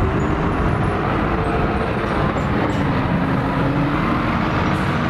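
Hybrid double-decker bus driving by, a steady low engine rumble with road and traffic noise.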